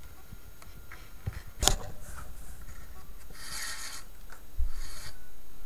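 Thin kite rope rubbing and sliding as it is pulled through a hole in a plastic hydrofoil clamp, in a few short pulls, with one sharp knock about one and a half seconds in.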